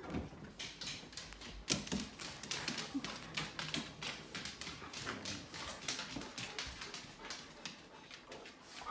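Huskies moving about excitedly, their claws clicking and tapping on a hard floor in a quick, irregular patter, with a few brief whines.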